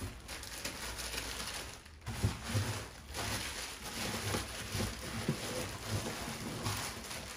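Plastic bubble wrap rustling and crinkling in an irregular crackle as a car light is wrapped back up in its packing.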